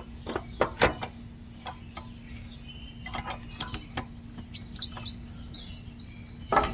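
Sharp metal clicks and clinks as the pin and clutch parts of a Wheel Horse garden tractor's belt drive are fitted back by hand, with a louder knock near the end. Small birds chirp quickly in the middle, over a faint steady hum.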